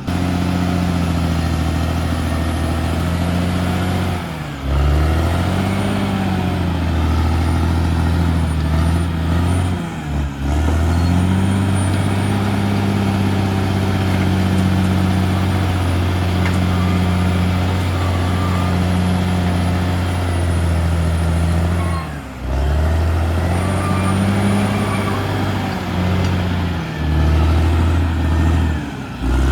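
Caterpillar D6R XL bulldozer's diesel engine running under working load, its pitch rising and falling as the operator pushes earth. A few short breaks interrupt it, about a third of the way in and again later.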